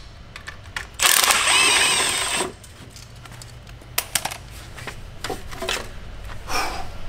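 Cordless electric ratchet spinning out an exhaust manifold bolt for about a second and a half, its motor whine wavering under load. This is followed by a few light metal clicks and knocks as the loosened manifold is worked free.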